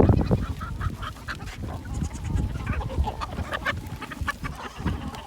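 Goats feeding at a feeder: many small clicks and rustles of feed over a low rumble.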